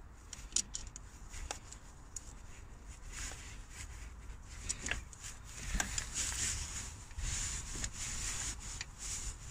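Hand and sleeve rubbing and rustling inside an engine bay while a worm-drive Jubilee hose clip is loosened, with scattered small irregular clicks of metal.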